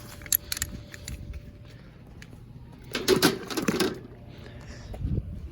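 Metal seat belt buckles clinking and knocking against a pot as the belts are lowered into hot dye water, with a louder burst of clatter about three seconds in.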